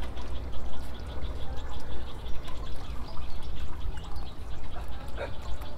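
Steady low rumble with faint trickling and dripping water and a few light clicks and taps.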